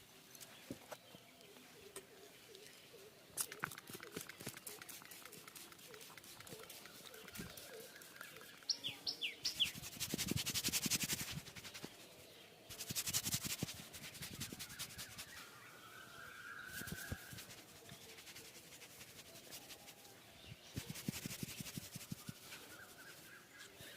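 Hands rubbing and kneading a head and hair during a head massage, in three bursts of rapid crackly strokes, with a few short bird chirps.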